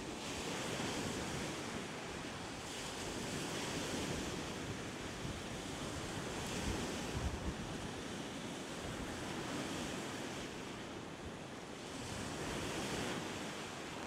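Small lake waves washing onto a rocky shoreline, swelling every two to three seconds, with wind gusting on the microphone.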